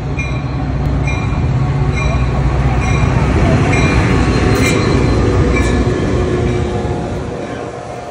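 Metra diesel locomotive pulling into a station, its low engine rumble swelling as it passes and then easing as the coaches roll by. Its bell rings steadily about once a second, and a thin steady squeal comes in near the end.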